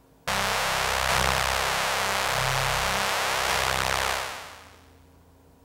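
Behringer DeepMind 12 synthesizer playing a bright, buzzy patch over shifting low notes, run through its digital Mood Filter effect with the filter's resonance assigned to the mod wheel. It comes in suddenly about a quarter second in, holds for about four seconds, then fades out.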